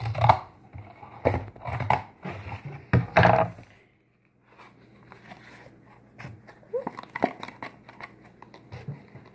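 Crinkling and tearing of a baking soda packet being opened, in several loud bursts over the first few seconds, followed by quieter rustling and small clicks of handling.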